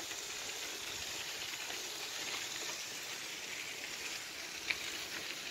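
Bicycle rolling along a gravel path: a steady gritty hiss of tyres on loose gravel, with one short click near the end.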